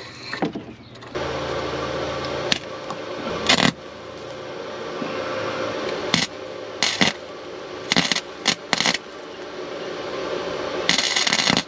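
A car engine comes on about a second in and runs steadily. Over it come irregular sharp metallic clanks and jingles, about nine of them, the loudest and longest near the end. These are typical of screws wedged into the A/C compressor clutch, which forces the clutch plate to turn with the belt-driven pulley, rattling against the metal.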